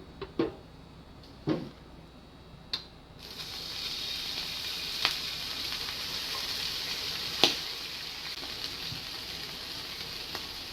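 A few light knocks, then from about three seconds in a frying pan starts sizzling steadily, with an occasional pop.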